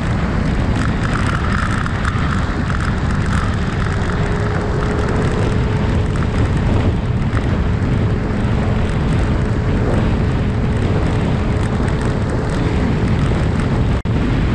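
Wind rush buffeting the microphone while riding a 2022 Yamaha Zuma 125 scooter at road speed, its single-cylinder engine running steadily underneath with a faint steady whine. The sound drops out for an instant near the end.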